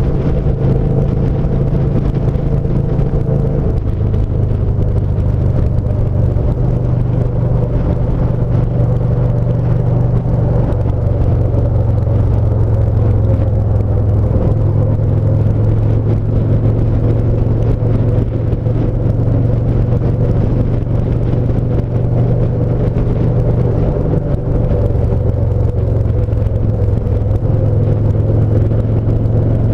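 Yamaha SCR950's air-cooled V-twin engine running steadily at cruising speed under the rider, its pitch stepping slightly up or down a few times as speed and throttle change.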